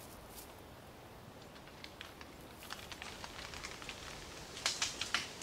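Young red deer stepping through dry fallen leaves: faint scattered crackles and rustles that grow denser and louder near the end.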